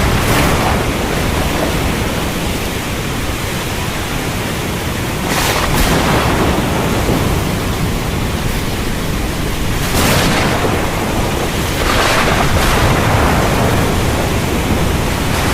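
Heavy rain hissing steadily over a continuous low thunder rumble, with brief sharper swells of noise about five to six, ten and twelve seconds in.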